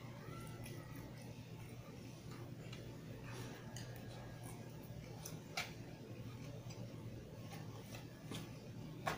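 Close eating sounds: fingers tearing fried chicken and picking up rice, with soft chewing, heard as scattered small clicks and two sharper ones, over a steady low hum.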